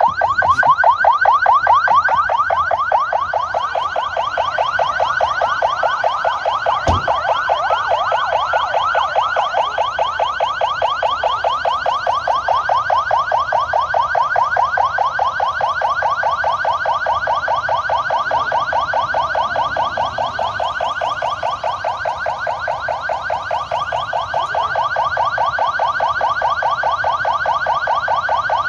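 Police car siren on a fast warble: an electronic tone sweeping up and down many times a second, sounding steadily throughout. One short thump is heard about seven seconds in.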